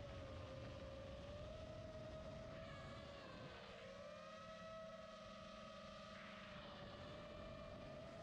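A 5-inch FPV quadcopter's F40 1950 kV brushless motors and propellers whining steadily, the pitch wavering slightly with throttle. For a few seconds in the middle the rushing noise beneath the whine drops away, leaving a cleaner tone.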